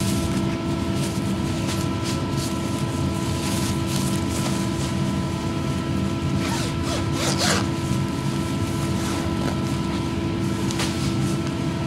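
Shop air compressor running with a steady hum. About six to seven seconds in, a disposable coverall rustles and its zipper is pulled.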